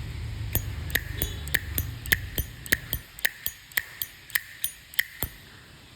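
Zippo Slim lighter making a run of sharp metallic clicks, about three a second, each with a short bright ring from the brass case.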